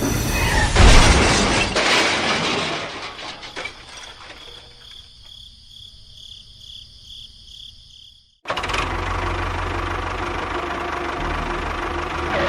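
A loud noisy burst that fades over a few seconds with a pulsing high ringing, then a sudden cut, then a steady motor-like running noise with a low hum.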